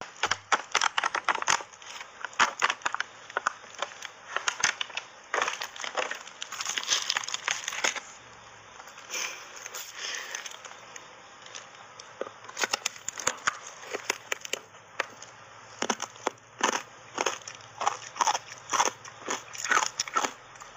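Hard reshaped ice coated in matcha powder crunching as it is bitten and chewed in big bites: many sharp crunches in quick succession, with a quieter stretch around the middle.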